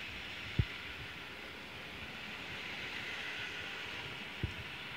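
Steady hiss of rain falling, with a sharp low thump about half a second in and a softer one near the end.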